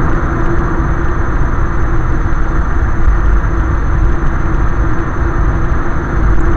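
Steady road and engine noise of a car cruising on a motorway, heard from inside the cabin: a low rumble with a steady hum running through it.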